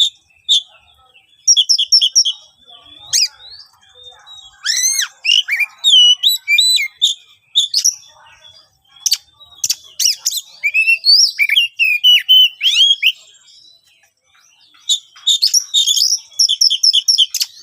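Oriental magpie-robin singing a loud, harsh, varied song: short bursts of whistles, sliding notes and rough calls with pauses between, and a fast run of repeated notes near the end.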